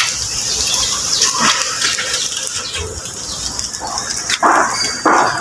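Pigs calling twice near the end over a steady hiss of background noise.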